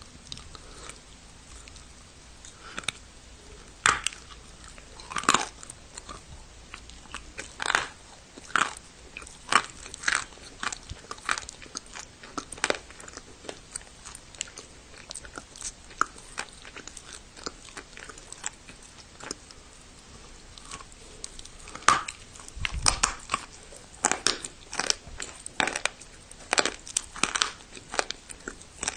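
Close-up biting and chewing of dry clay (turbah): a string of sharp, irregular crunches as pieces are bitten and ground between the teeth, thickest in two spells, about four seconds in and again near the end.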